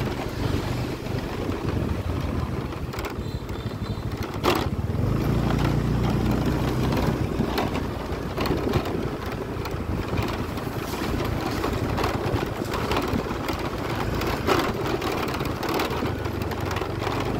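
Motor scooter engines running in a busy street: a scooter passing close at the start, then a steady low engine hum over street noise. There is a single sharp knock about four and a half seconds in.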